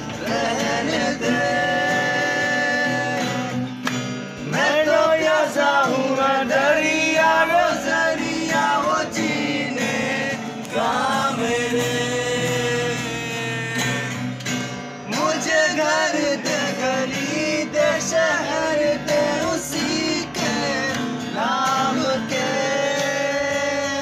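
A man singing to a strummed steel-string acoustic guitar, the voice rising and falling through held, wavering notes over steady chords.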